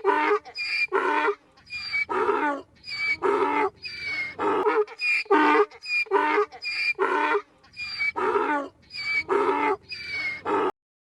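An animal calling over and over in short, loud, pitched calls, several a second, which stop abruptly near the end.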